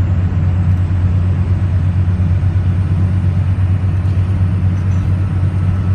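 1999 Dodge Ram's Cummins 24-valve turbo diesel inline-six cruising at steady highway speed with the torque converter locked: an even low drone with a faint thin high tone over it.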